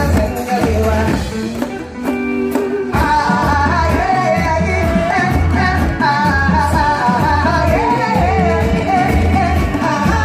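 Upbeat pop song with a singing voice over a steady bass beat; about two seconds in, the beat drops out briefly under held notes, then comes back in.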